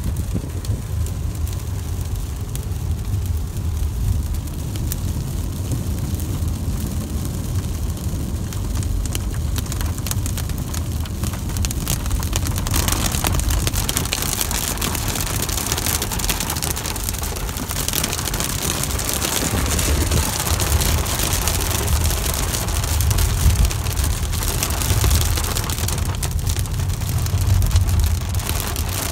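Rain beating on a car's windshield and body while the car drives through a thunderstorm, over a steady low rumble of wind and road. The rain gets louder about twelve seconds in.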